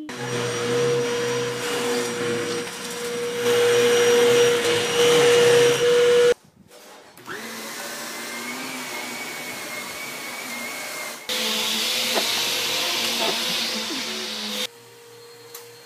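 Vacuum cleaners running steadily, a canister vacuum first. The sound is a loud rush with a steady whine, and the pitch of the whine changes at abrupt cuts about six, eleven and fifteen seconds in.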